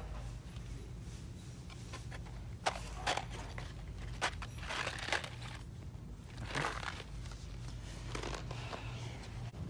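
A few short rustles and scrapes as cardboard candy boxes are handled and taken off a store shelf, over a steady low hum.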